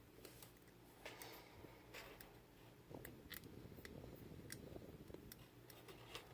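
Faint, scattered light clicks and scrapes of a lock pick working the pins inside a mortise lock cylinder.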